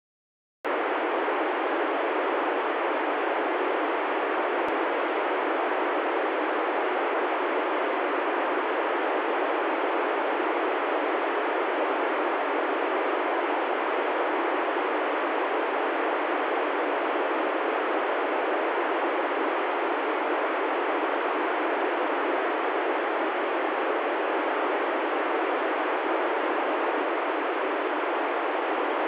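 Steady FM static hiss from an ICOM ID-51 handheld transceiver with its squelch open, tuned to the ISS downlink frequency with no voice on the channel yet. The hiss starts suddenly under a second in and holds an even level.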